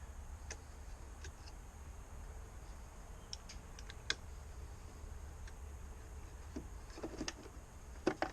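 Scattered light clicks and taps of small plastic mirror parts being handled, with a quick cluster of clicks near the end, over a low steady hum.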